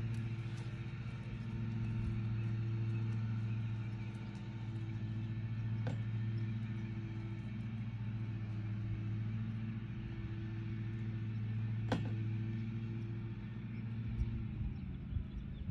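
Steady low engine hum, like a motor vehicle idling, with two sharp clicks about six seconds apart. The hum eases near the end, where low bumps come in.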